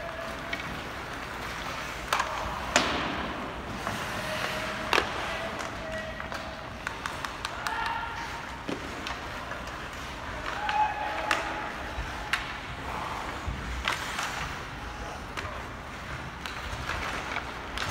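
Hockey game in play: skates scraping across the rink surface, with irregular sharp clacks of sticks, puck and boards and a few brief distant shouts.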